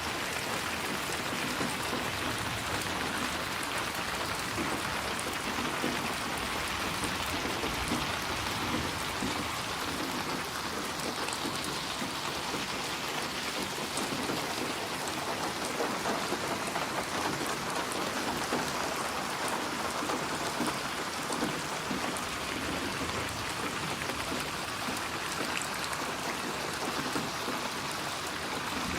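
Steady rain falling, an even hiss of drops with faint scattered patters on surfaces.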